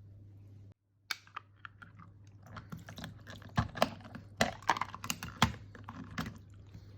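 Crunching of crisp pickled red turnip: a run of sharp, irregular crunches and clicks with a few low thumps, starting about a second in.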